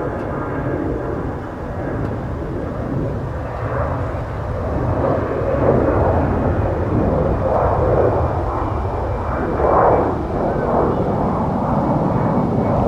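Airbus A320-200 jet taking off, a steady jet engine noise that grows louder about halfway through.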